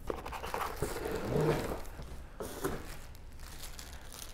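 Cardboard shipping boxes and clear plastic rod wrapping being handled as fishing rods are unpacked: rustling and crinkling with a few light knocks.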